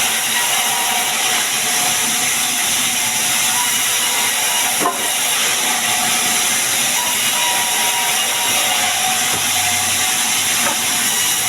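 Sawmill saw cutting sengon wood: a steady, loud hiss with a faint whine, and a single short click about five seconds in.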